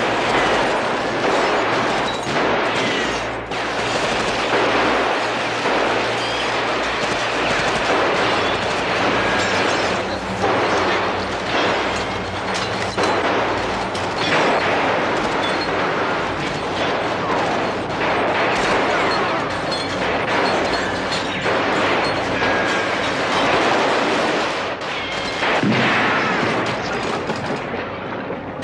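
Heavy, continuous gunfire from many automatic weapons, the shots overlapping without a break, as the sound effects of a film shootout.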